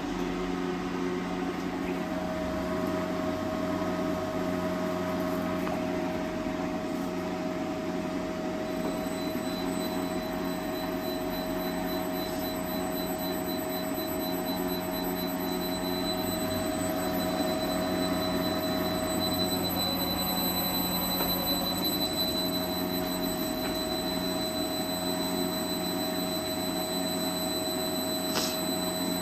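Repaired Yaskawa A1000 variable-frequency drive running under test: a steady electrical hum and fan noise with steady whining tones. A higher-pitched whine comes in about nine seconds in, and there is a brief tick near the end.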